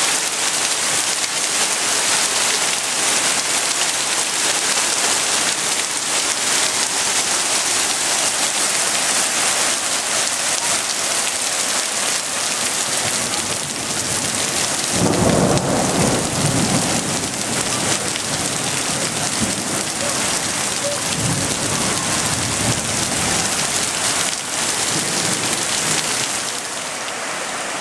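Heavy rain falling with a steady hiss. A low roll of thunder rumbles about halfway through, with a weaker rumble a few seconds later.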